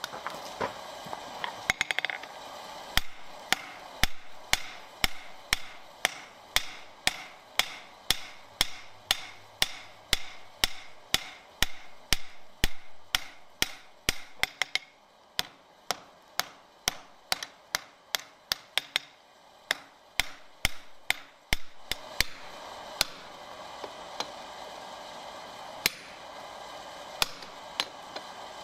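Hand hammer striking red-hot steel on an anvil: ringing blows about two a second, with a brief pause partway through. Near the end the blows thin out to a few single strikes over a steady hiss.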